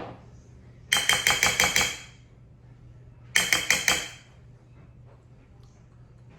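A utensil clattering against a dish in two short runs of quick, even strokes, about seven a second, with a ringing edge. The first run comes about a second in, the second about three and a half seconds in.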